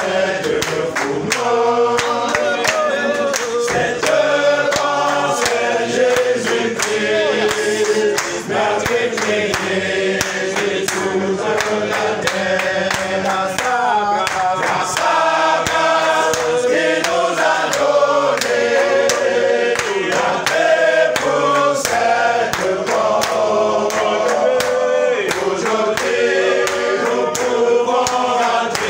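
A congregation of mostly male voices singing a hymn together, with hand claps keeping a steady beat throughout.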